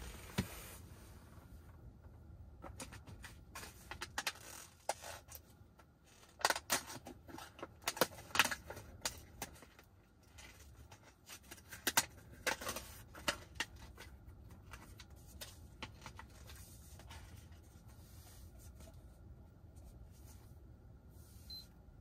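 Small objects being handled by hand: a run of clicks, taps and light scrapes, busiest in the middle, over a low steady hum.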